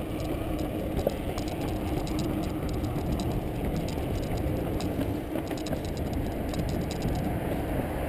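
Bicycle rolling over paving with a steady rumble and many light, irregular rattling ticks.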